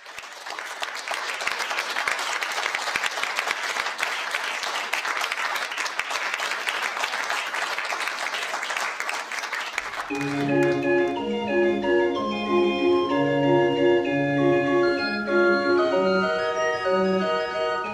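Audience applauding, a dense patter of clapping; about ten seconds in the clapping stops and instrumental music with a melody of held keyboard-like notes and a bass line takes over.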